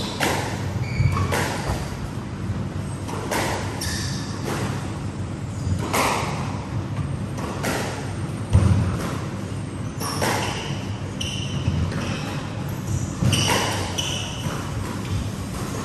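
Squash rally: the rubber ball cracking off rackets and smacking the court walls, a hit every second or two, echoing in the court. Short high squeaks of court shoes on the wooden floor come between the hits.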